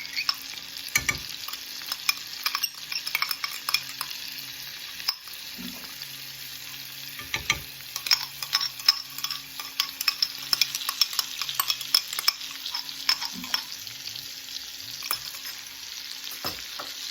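Minced garlic sizzling in melted butter in a hot pan: a steady hiss with frequent crackles and clicks.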